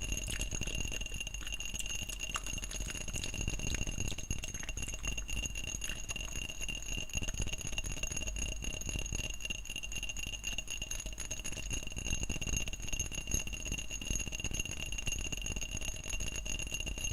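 Close-miked wet mouth and licking sounds: a dense run of fine clicks and crackles over a steady high-pitched whine.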